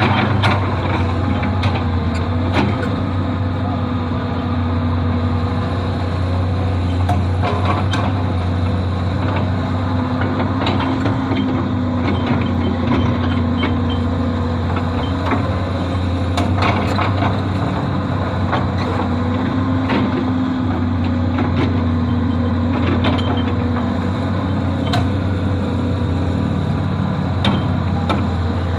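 Excavator's diesel engine running steadily, with scattered sharp knocks and clanks of metal and debris.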